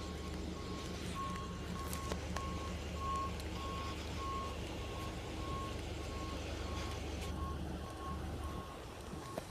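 Vehicle reversing alarm beeping steadily at about two beeps a second, over the low hum of a large vehicle's engine, which drops away near the end.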